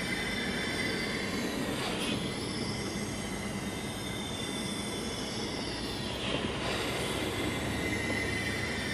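Large home-built model beam engine, fitted with new valves, running slowly: a steady hiss with high whining tones over a low hum, with a brief sweep in pitch about two seconds in and again some four seconds later.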